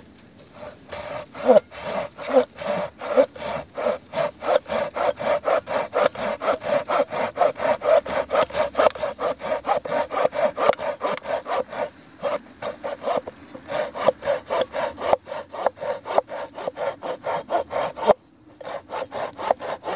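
Silky Pocketboy folding pull saw with a 170 mm blade cutting through a branch about 5–6 cm thick, in a rapid, steady rhythm of rasping strokes, with two brief pauses, one midway and one near the end.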